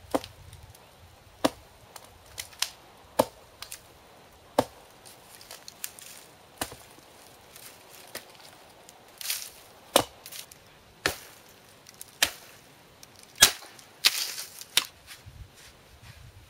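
Hatchet blows on a dead pine trunk: about a dozen sharp, irregularly spaced chops, with two longer rasping stretches around nine and fourteen seconds in.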